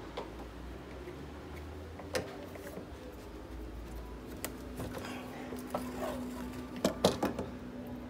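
Scattered clicks and knocks of hands handling the plastic housing, wiring and parts of a dismantled washing machine, with a few sharper knocks close together near the end.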